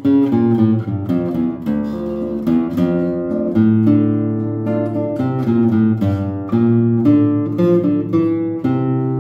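Seven-string acoustic guitar (violão de sete cordas) played solo: a flowing bass line of low single notes mixed with plucked chords, several notes a second with no pause.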